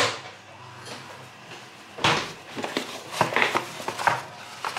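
Several sharp knocks and clatters of kitchen things being handled at a metal baking pan on a wooden counter, starting about two seconds in.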